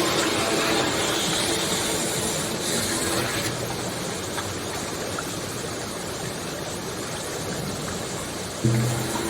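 Ambient music over a steady rushing noise like flowing water; a low tone comes back in with a rise in loudness near the end.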